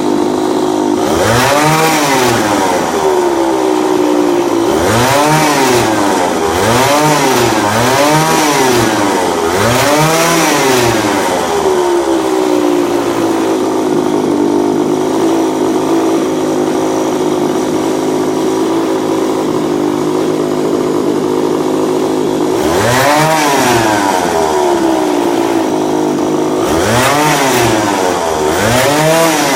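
Small 49cc go-kart engine revving up and down in a string of quick blips, then idling steadily for about ten seconds before several more revs near the end.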